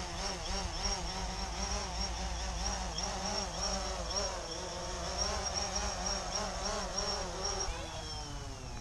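DJI Phantom 3 Standard quadcopter sitting on the ground with its motors and propellers spinning at idle: a steady buzzing hum that wavers slightly in pitch, then winds down about eight seconds in as the motors stop.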